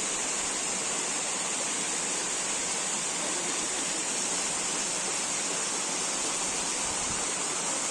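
Steady hiss of rushing water from a waterfall, even and unbroken.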